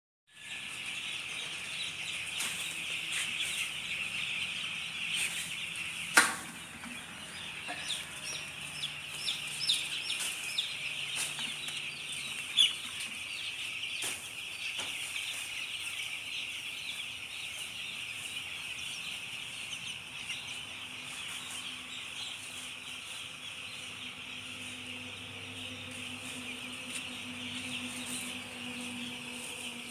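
A flock of poultry-farm chickens calling together in a dense, steady chorus of high cheeping and clucking. Two sharp knocks stand out, about six seconds in and again near twelve seconds.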